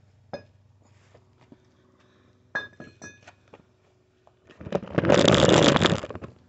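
A few light metal clinks with a brief ring about two and a half seconds in. Then over a second of loud rubbing and scraping as a hand grabs the phone and brushes its microphone.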